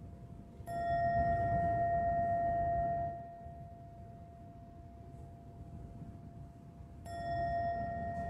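Small metal bell hanging on a cord, struck twice with a stick about six seconds apart. Each strike rings out as a clear tone with higher overtones that fade first, and the main tone keeps ringing between the strikes.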